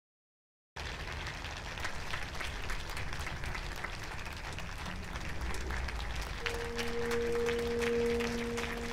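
Applause from many hands, starting suddenly about a second in and running steadily. A steady held tone sounds over it for the last couple of seconds.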